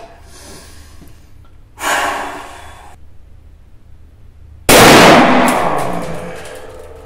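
A single shot from a sawn-off Baikal IZh-43 side-by-side 12-gauge shotgun with ported barrels, fired from the right barrel with a low-brass shell: a sudden very loud blast about two-thirds in that rings on in the range for a couple of seconds. About two seconds in, a short breath.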